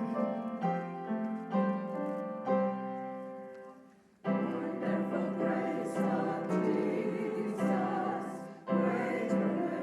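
Piano playing single notes that fade out about four seconds in. Singing with piano accompaniment then begins abruptly, with a short break about nine seconds in.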